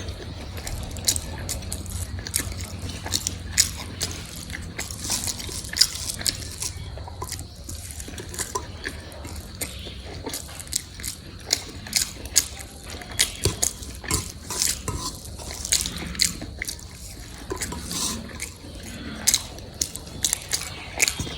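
Close-miked eating of fried potatoes: irregular sharp clicks of utensils against a plate and mouth noises while chewing, with a faint low hum in the first few seconds.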